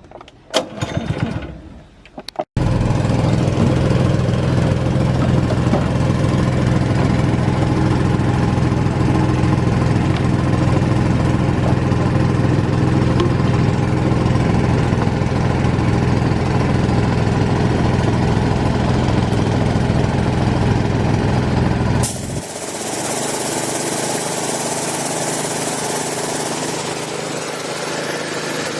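An engine running steadily with a deep hum. It comes in abruptly a couple of seconds in. About three-quarters of the way through, the sound shifts to a hissier, thinner running noise with less low end.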